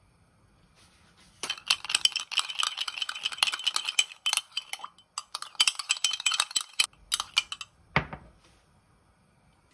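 Metal spoon stirring sauce in a small ceramic ramekin, clinking and scraping rapidly against the sides for about five seconds with a short pause midway. A single knock near the end.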